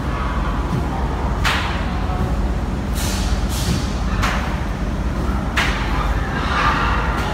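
About five sharp slaps at irregular intervals over a steady low rumble. These are almost certainly slaughterhouse workers slapping pigs.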